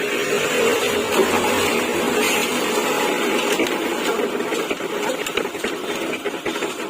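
Half-bag mini concrete mixer with a 2 hp single-phase electric motor running steadily.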